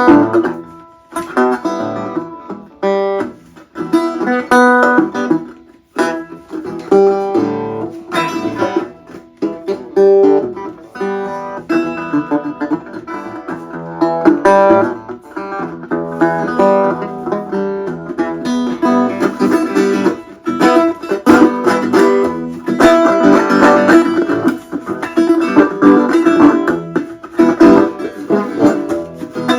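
Dobro resonator guitar being played: a stream of picked notes with a couple of short breaks.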